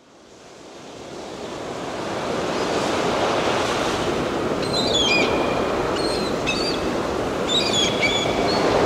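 Sea surf washing on a shore, fading in over the first two seconds, with several short clusters of high bird chirps in the second half.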